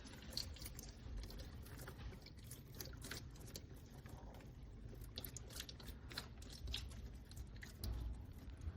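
Faint, irregular clicks and crackles over a low rumble.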